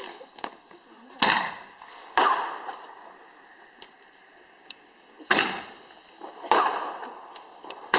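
Fireworks going off: four loud bangs spaced one to three seconds apart, each followed by a fading crackle, with a few small pops in between.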